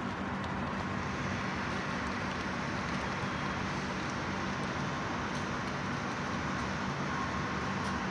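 A steady background drone: an even hiss with a low hum under it, holding at one level with no single event standing out.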